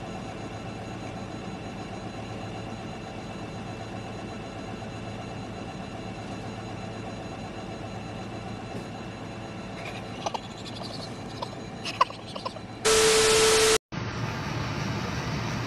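Heavy-equipment engine running steadily, with a few light metallic clinks near the end. Then a loud burst of hiss lasting about a second cuts in, drops out briefly, and a different engine-and-outdoor noise follows.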